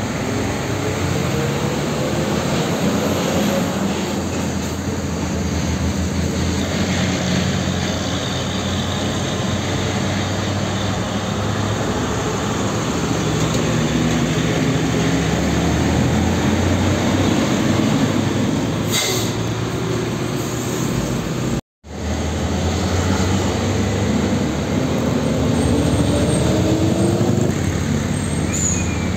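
Heavy diesel trucks, a Mercedes-Benz Axor box truck, a Hino 500 dump truck and a Volvo FL tractor unit, pulling slowly through a turn one after another. Their engines rise in pitch three times as each accelerates away. The sound cuts out for an instant about three quarters of the way through.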